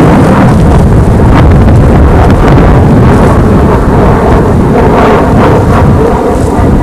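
Wind buffeting the camcorder's microphone: a loud, steady low rumble with no let-up.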